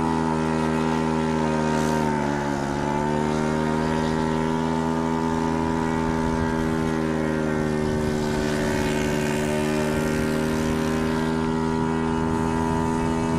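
Radio-controlled model airplane's engine and propeller running at a steady high pitch. The pitch dips briefly about two seconds in as the throttle eases, then comes back up and holds.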